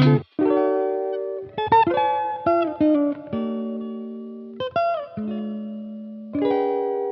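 Background music: guitar chords struck and left to ring, a new chord every second or two, each fading slowly.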